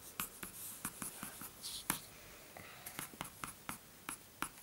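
Pencil scratching on paper in a series of short, quick strokes, about three a second, as grass blades are sketched. Faint.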